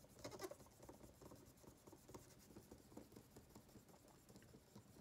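Faint, quick scratchy rubbing of a dry cotton swab against a MacBook Pro's spacebar, drying the key after a wet wipe with cleaner.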